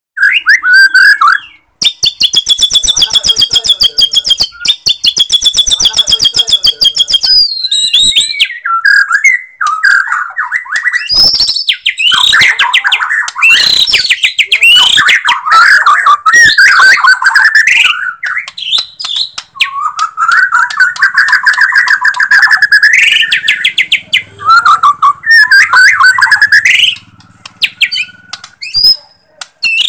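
Caged white-rumped shama (Bornean murai batu) singing loudly. Its varied song opens with a long rapid high trill and runs on in quick whistled phrases and trills, with brief pauses between them.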